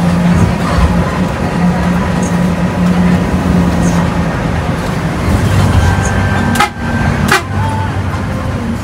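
Intercity bus running on the road, its engine drone and road noise heard from inside the cabin, with a horn sounding and two sharp knocks in the second half.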